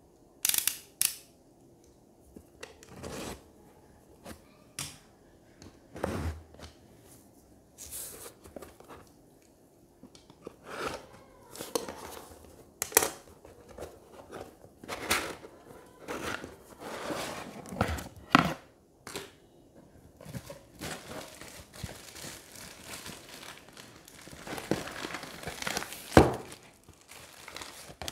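Cardboard shipping box being unboxed: a snap-off utility knife cutting through packing tape, with tape and cardboard tearing in short, sharp strokes, then plastic component bags and bubble wrap crinkling as they are handled near the end.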